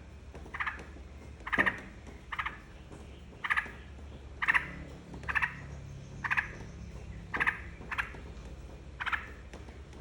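Yellow-vented bulbul (trucukan) calling: short, sharp chattering notes repeated about once a second, some ten or eleven in a row, over a faint steady low hum.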